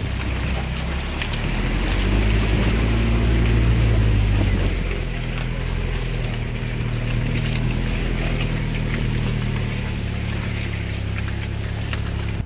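A vehicle's engine pulling steadily at low speed over a muddy, rutted dirt road, heard from inside the cab, with scattered knocks and rattles. The engine grows louder about two seconds in, as if under more load, then eases back.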